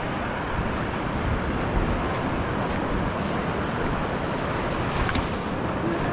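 Ocean surf washing steadily on the shore, with wind buffeting the microphone.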